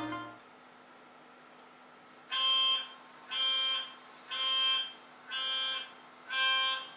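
ESU LokSound sound decoder in a Plasser & Theurer 09-16 tie tamper model playing a warning buzzer. About two seconds in it sounds five even beeps, each a little over half a second long and about a second apart.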